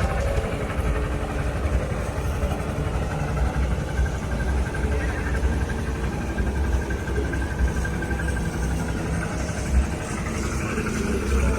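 Diesel engine of road-work machinery running steadily with a low rumble, and a thin whine for a few seconds midway.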